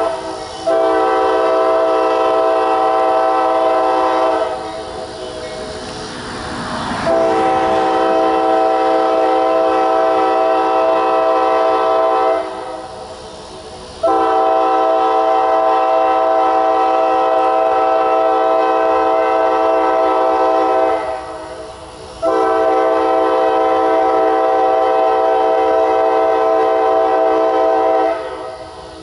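Locomotive air horn sounding four long, steady blasts, with short gaps between them. A rush of passing-train noise swells between the first and second blasts.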